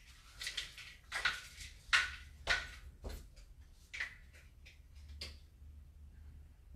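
Handling noise of hand rattles being put away and picked up: about seven short, soft rustles and knocks over the first five seconds, then quieter.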